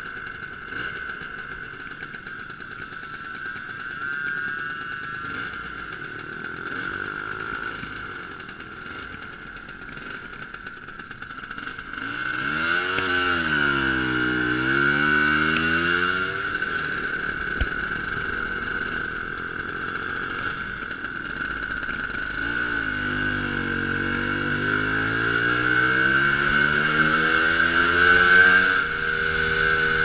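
Motor scooter engine running while the scooter is ridden. It is fairly quiet at first. About twelve seconds in, the engine note gets louder, dips and climbs again, then rises steadily through the second half and drops suddenly near the end.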